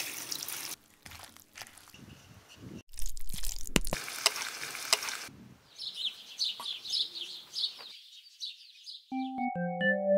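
Bursts of hiss with clicks, then a quick run of high bird chirps, and near the end a few soft music notes begin.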